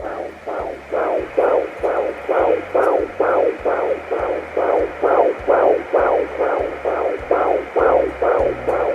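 Fetal heartbeat picked up by a Sonoline B handheld fetal doppler and played through its speaker: a steady rhythm of loud pulses, a little over two a second, the normal quick rate of a fetal heart.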